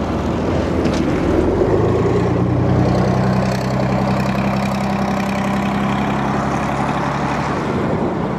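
A motor vehicle's engine running steadily, its low hum setting in about two seconds in and dropping away shortly before the end, over a steady rushing noise.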